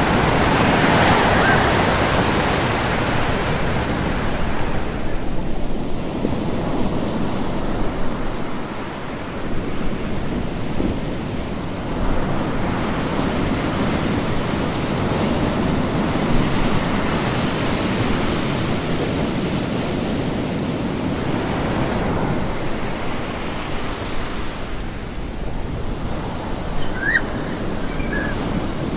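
Ocean surf, a steady rushing of waves that slowly swells and eases.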